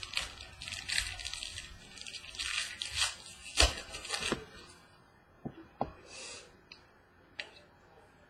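Trading cards and their plastic packaging rustling as they are handled, for about five seconds, then a few light clicks and taps.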